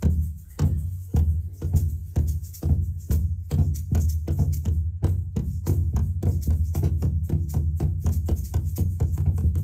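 Surdo bass drum struck over and over with a soft-headed mallet and by hand, each stroke a low boom. The strokes keep a steady beat of about two a second and grow busier after about five seconds.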